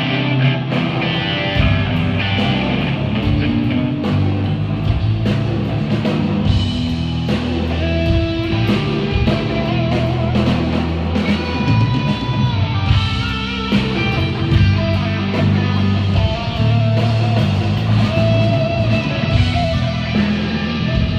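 Loud rock music: electric guitar playing over drums, with regular drum and cymbal hits.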